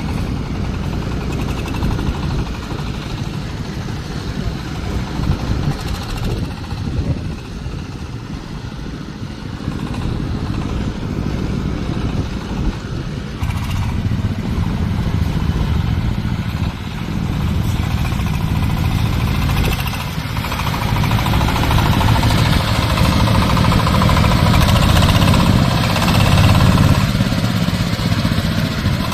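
Engine-driven corn sheller for unhusked maize running steadily. About two-thirds of the way through, the machine noise grows louder and fuller, then eases off slightly near the end.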